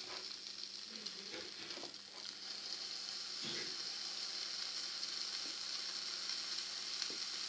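Steady, faint sizzling of a bacon and goat's cheese panini cooking in an electric waffle maker with its lid pressed down, with a few faint knocks and creaks.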